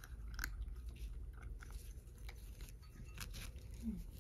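Cat crunching dry kibble from a bowl, chewing in irregular crunches, with a brief low falling tone near the end.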